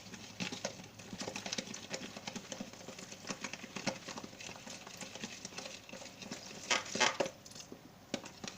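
A utensil stirring flour batter in a bowl as water is worked in: a quick, uneven run of light clicks and scrapes against the bowl, with a louder clatter about seven seconds in.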